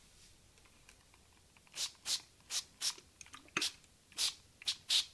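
Hand-pumped trigger spray bottle misting water onto a paper towel: about eight short hissing sprays, starting a couple of seconds in, some in quick pairs.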